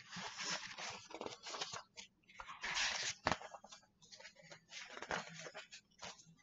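Pages of a picture book rustling and flapping as it is handled, opened and turned, with a sharp tap about three seconds in.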